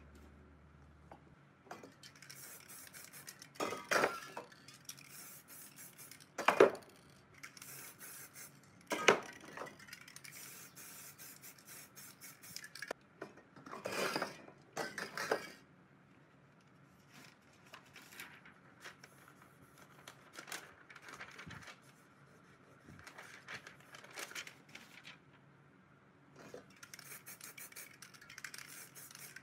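Aerosol spray paint cans in use: several short hisses of spray, most of them in the first half, among clinks and knocks of metal cans being handled and set down.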